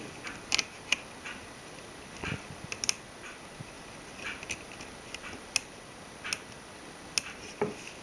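Beading needle working glass seed beads onto embroidery canvas: about nine short, sharp, light clicks at irregular intervals, with soft rustles of the thread being drawn through between them.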